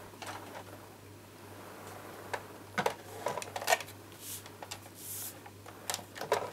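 Sizzix Big Shot die-cutting machine being set down and its clear acrylic cutting plates and dies handled on its platform: scattered plastic clicks and light knocks, the loudest a little past halfway and a few more near the end.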